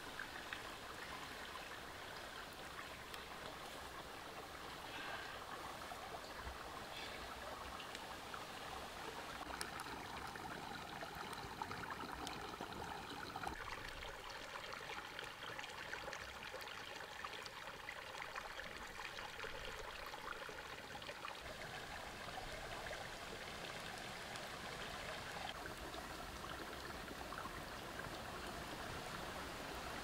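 Shallow rocky stream running steadily, with scattered small crackles from a wood fire.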